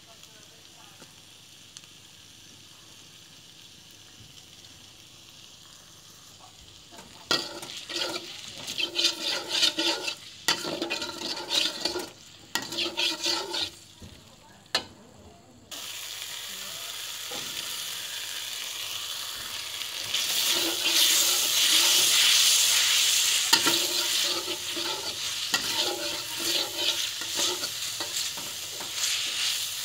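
Metal spatula scraping and tossing noodles around a hot wok, with oil sizzling underneath. It is faint for the first few seconds. Scraping strokes come in bursts from about a quarter of the way in, and the sizzling swells loud in the second half.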